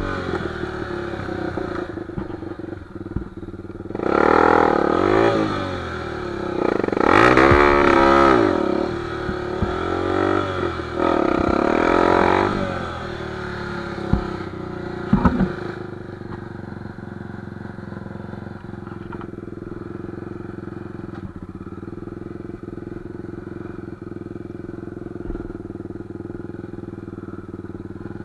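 Dirt bike engine revved in three rising-and-falling bursts in the first half, then settling to a steady idle from about halfway through, with a couple of short knocks in between.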